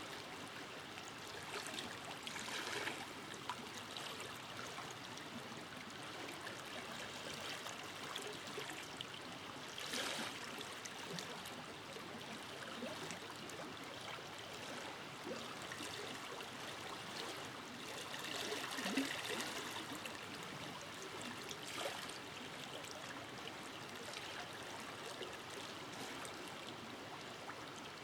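A forest river flowing over stones, a steady rush of water with gurgling and splashing that swells a little about three seconds in, around ten seconds and around nineteen seconds.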